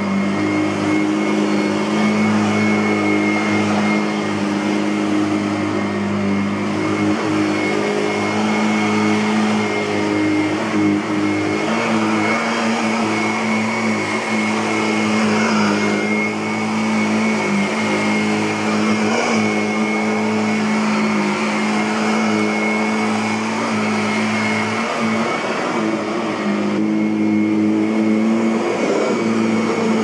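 Kirby Avalir 2 (G10D) upright vacuum cleaner running on carpet: a steady motor-and-fan drone with a thin high whine over it, its pitch dipping slightly now and then as it is pushed across the pile.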